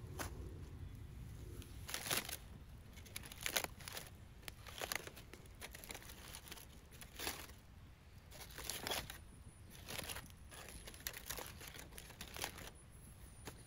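Irregular crinkling and rustling: about a dozen short bursts at uneven intervals, like something being handled, over a faint steady background.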